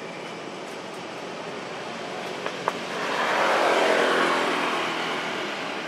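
A motor vehicle passing: its sound swells about three seconds in, peaks and fades away, over steady background noise. A single sharp click comes just before the swell.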